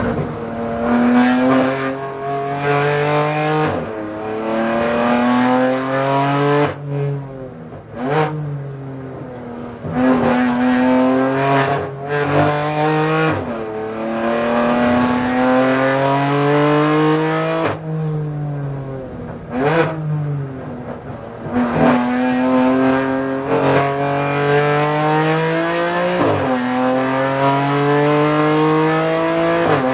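BMW M4 GT4 race car's twin-turbo straight-six heard from inside the cockpit, lapping a track. The revs climb under acceleration and fall away under braking several times, with brief sharp rev spikes as it downshifts.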